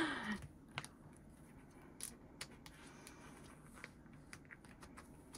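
Faint, scattered clicks and crinkles of a photocard being handled and slid into a plastic binder sleeve.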